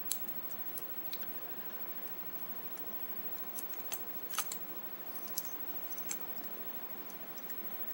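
Light, scattered metallic clicks and taps of keys and a Yale large-format interchangeable lock core being handled, about eight in all, the sharpest about four and a half seconds in.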